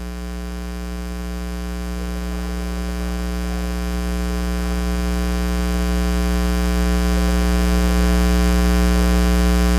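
Steady electrical mains hum, a low buzz with a long ladder of overtones, slowly growing louder.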